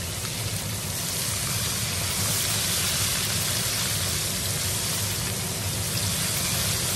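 Flour-coated chicken pieces deep-frying in a wide pan of hot oil: a steady, dense sizzle.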